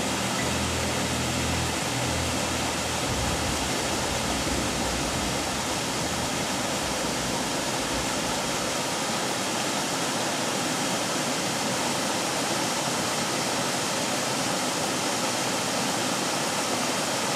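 Water pouring steadily over a small stone weir into a pool, a constant rushing roar.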